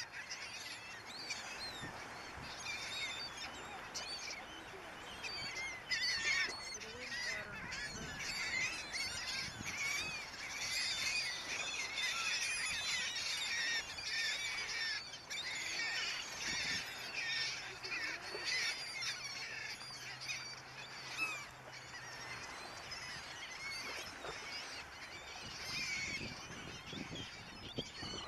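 A flock of laughing gulls calling continuously, many short calls overlapping.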